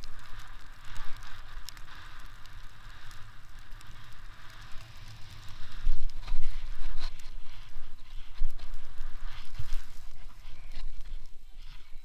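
Wind rushing over the microphone and snow hissing under a rider carving through deep powder, with scattered sharp bumps; it gets louder about halfway through.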